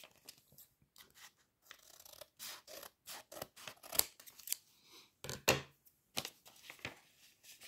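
Scissors cutting open a paper envelope: a run of short, irregular snips and paper rustles, loudest about four seconds in and again a second and a half later.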